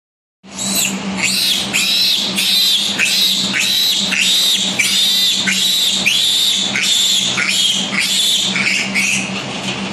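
Piglet squealing over and over during castration, about two high-pitched squeals a second, each sweeping up in pitch, over a steady low hum.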